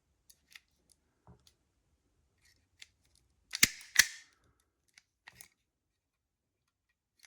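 Self-adjusting wire stripper working on thin stranded wire: two sharp snaps less than half a second apart as it grips and strips the insulation, with faint handling clicks around them.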